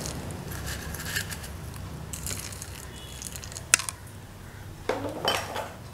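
Dry, crunchy Kerala snack mixture being sprinkled onto the drinks, with light rustling and scattered small clicks and a sharper click a little before four seconds in.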